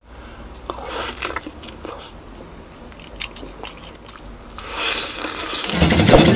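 Close-up biting and chewing of whole roast chicken: scattered short, sharp clicks and crunches. About four and a half seconds in, a swelling swoosh leads into loud intro music that starts near the end.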